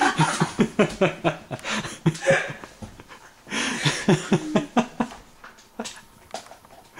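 A young woman laughing hard in quick repeated bursts, two bouts of giggling with a short breath between them, dying down near the end.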